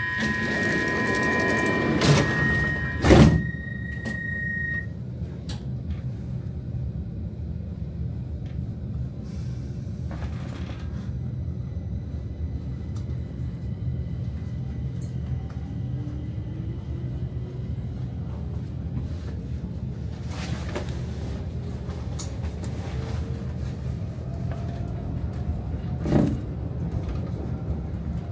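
Stockholm metro train's door-closing warning tones sound, and the doors shut with two heavy thuds about two and three seconds in. The train then pulls away with a steady low rumble and a faint rising whine as it accelerates, with a single knock near the end.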